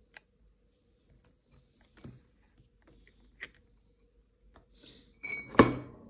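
Scattered light clicks and taps of multimeter probe tips being set on a MacBook logic board's DC-in power connector, with a short high tone and then a louder click near the end.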